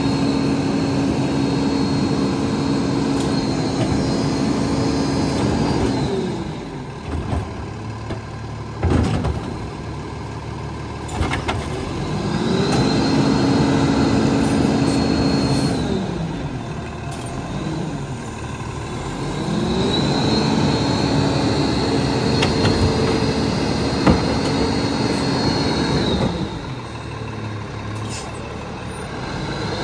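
Lodal EVO side-loading garbage truck speeding up to drive its hydraulics and dropping back to idle three times as the cart tipper lifts and dumps wheeled bins into the hopper, with a whine that rises and falls in pitch. Sharp knocks and clunks of the carts and falling trash come in between.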